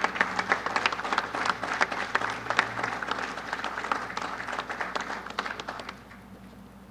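Audience and people on stage applauding, the clapping fading out about six seconds in.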